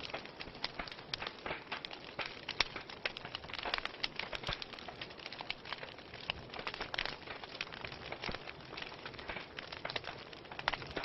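Wood fire crackling in a fireplace: a steady stream of irregular sharp pops and snaps, several each second, over a soft hiss.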